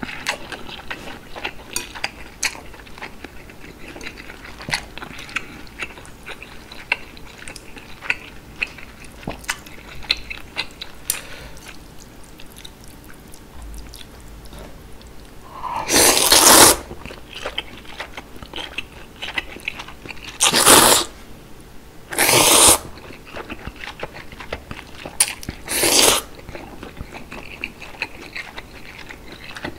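Close-miked chewing of chewy jjolmyeon noodles and pig's feet, with many small wet mouth clicks. In the second half come four loud slurps of noodles in spicy broth, the first and longest at about the middle.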